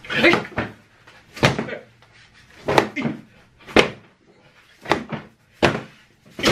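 Foam pool noodles whacking against a person, about seven sharp smacks roughly a second apart.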